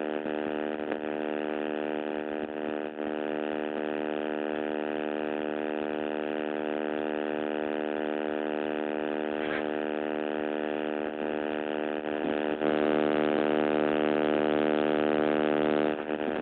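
Loud, steady electrical buzz from a damaged recording microphone, one unchanging droning tone with many overtones that drowns out everything else. It gets louder for a few seconds near the end.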